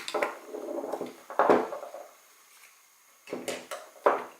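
Small hard objects handled and set down on a hard surface: a few separate knocks and clatters with rustling between, the loudest about a second and a half in.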